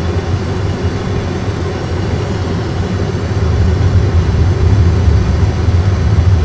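Simulated Airbus A320 engine and runway rumble during the landing rollout: a loud, steady low rumble that grows louder about three and a half seconds in.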